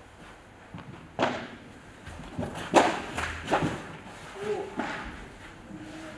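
Padel ball impacts echoing in a large indoor hall: a string of sharp thuds from the ball being hit and bounced, with a brief voice in the middle and a loud racket strike at the very end.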